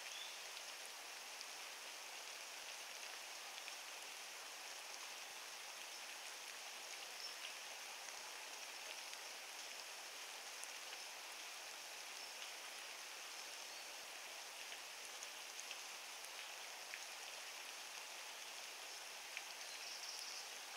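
Light rain falling, a faint steady hiss with scattered ticks of individual drops.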